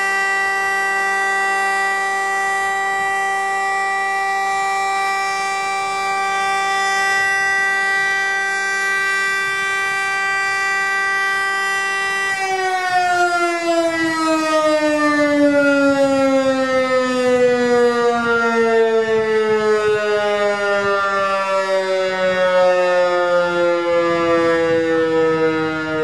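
VEM DS977 electric motor siren holding a steady tone. About halfway through, the pitch begins to fall slowly as the rotor winds down at the end of the test signal.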